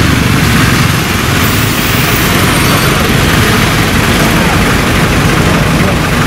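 Loud, steady vehicle engine and road noise close by, an even rush with no distinct rhythm or breaks.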